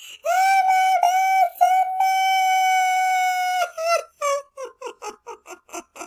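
A man's very high-pitched voice in a drawn-out, wavering moaning squeal, held for over a second at its longest, that breaks into a quick run of short, falling, giggling yelps, about four a second, near the end: a meme 'having a nut while laughing' sound.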